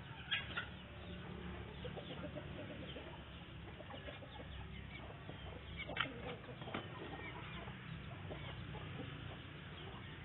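Free-range chickens clucking as they forage, with short calls scattered throughout. Two sharper, louder calls come about half a second in and about six seconds in, over a low steady rumble.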